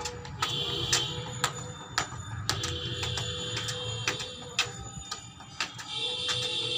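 A tennis ball being juggled on a foot: sharp, irregular taps, about two to three a second, as it is kicked up off the shoe and bounces on concrete. A high buzzing sound comes and goes three times behind the taps.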